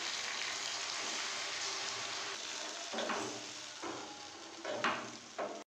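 Potatoes and vegetables in sauce sizzling in a non-stick frying pan just after a splash of water, the sizzle slowly dying down. A wooden spatula stirs the pan, scraping against it a few times in the second half.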